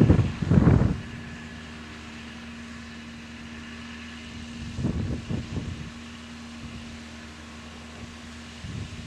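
Landini Vision 105 tractor's engine running steadily and faintly at a distance while it pulls a slurry tanker across the field, with gusts of wind buffeting the microphone in the first second and again about five seconds in.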